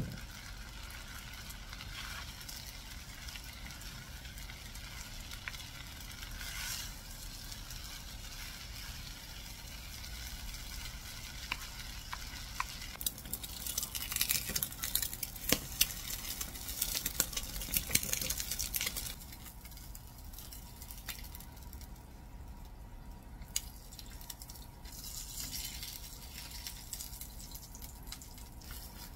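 Yeolmu kimchi fried rice sizzling softly in a frying pan while wooden spatulas stir and scrape it, with scattered clicks. Partway through comes a louder, crackling sizzle of eggs frying in oil, which stops abruptly and gives way to quieter scraping and clinks.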